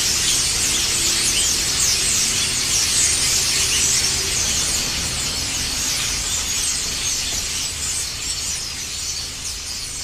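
A flock of birds chirping together: a dense chatter of overlapping high-pitched chirps, easing off slightly near the end.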